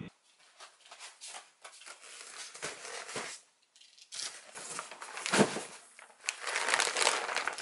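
Plastic food packaging crinkling and rustling as a delivery is unpacked, in scattered handling noises that become denser and louder over the last two seconds or so.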